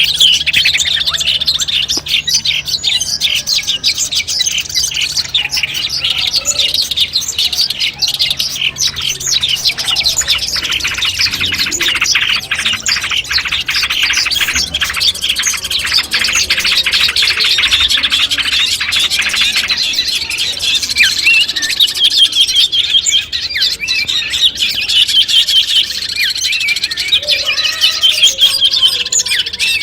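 Long-tailed shrike (cendet) singing: a fast, dense, continuous stream of chattering, scratchy notes and chirps.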